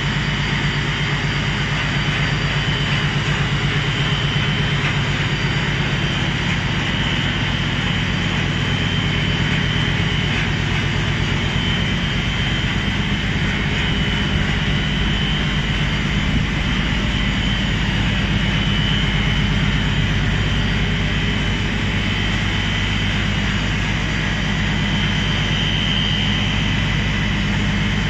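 Steady mechanical noise of running motors: a constant high whine over a low hum, unchanging throughout.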